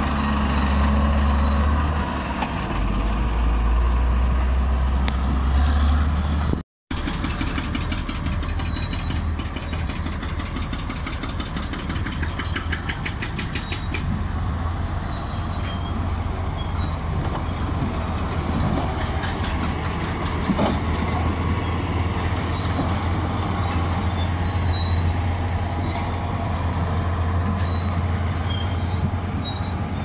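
Caterpillar motor grader's diesel engine running close by as the grader works gravel with its blade, a steady low drone. The sound cuts out for a moment about seven seconds in, then the engine drone carries on.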